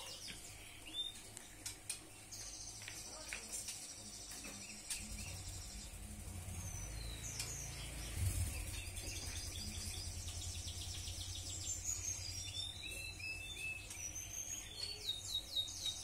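Small caged finches, sanger birds, chirping and twittering in short high-pitched trills, repeated over and over. From about five seconds in a low steady rumble runs underneath.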